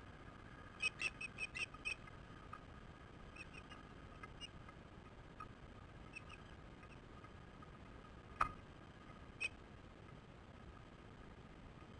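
Short, sharp osprey chirps: a quick run of about six about a second in, a few fainter ones after, and two louder single chirps near the end.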